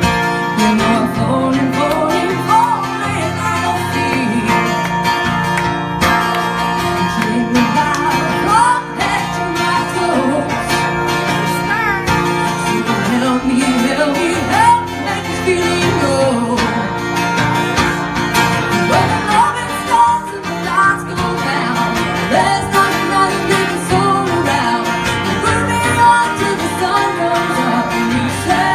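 Live amplified music: a singer performing a country-style song over electric guitar.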